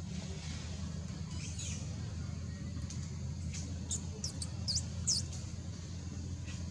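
A quick run of about five short, high-pitched squeaks from a small animal, over a steady low background rumble.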